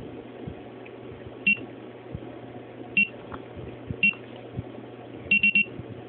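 DSC Alexor alarm keypad beeping as its buttons are pressed: three short high beeps about a second apart, then a quick triple beep near the end.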